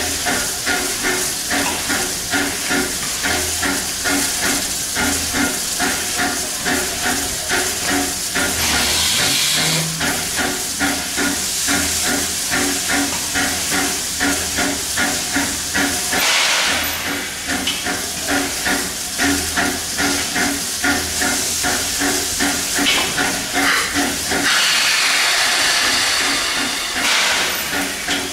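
American S160 steam locomotive standing in steam, with a steady rhythmic pumping beat a little over twice a second. Louder bursts of steam hiss come and go over it three times.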